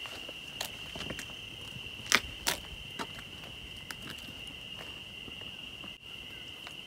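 A steady, high-pitched chirring of crickets, with scattered footsteps and small knocks on a hard floor. The two sharpest knocks come about two seconds in.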